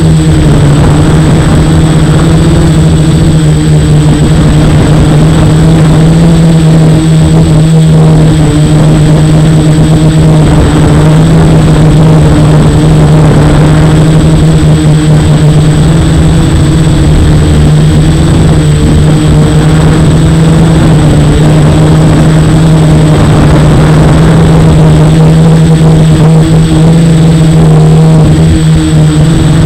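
F450 quadcopter's motors and propellers droning steadily in flight, very loud and nearly constant in pitch, with a thin high whine over it.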